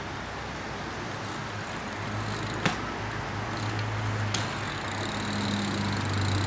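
A low steady engine hum under outdoor noise, getting louder over the second half, with a sharp click about two and a half seconds in and a fainter one later.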